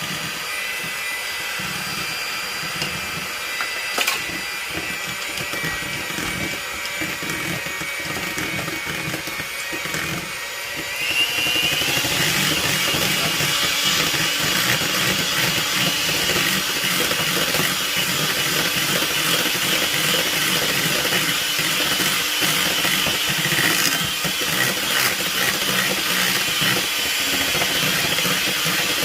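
Electric hand mixer running steadily at low speed, then switched up about eleven seconds in: its whine rises in pitch and it runs louder from then on.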